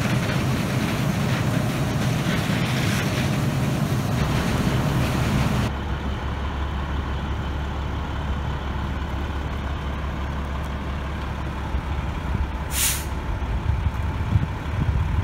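A fire hose jetting water over the low rumble of an engine. Then a fire engine idles with a steady low hum, and near the end its air brakes give one short, sharp hiss.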